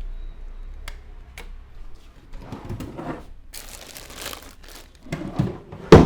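Head massage: hands rubbing and scrubbing through hair and scalp in short crinkly rustling strokes, with a couple of sharp clicks, then a very loud sharp smack near the end.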